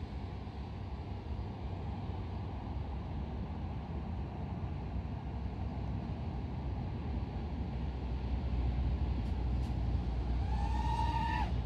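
5-inch FPV quadcopter in flight: a steady low rush of propellers and air, with a pitched motor whine that rises and then falls near the end.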